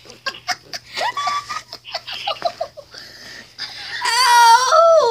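A child's voice giggling in short bits, then a long high wail from about four seconds in that slides down in pitch near the end. Clicks and knocks of the camera phone being handled run through the first few seconds.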